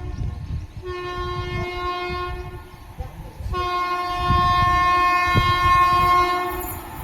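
Indian Railways train horn blown twice over the rumble of a moving train: a blast of about two seconds starting about a second in, then a longer, louder blast from the middle until near the end.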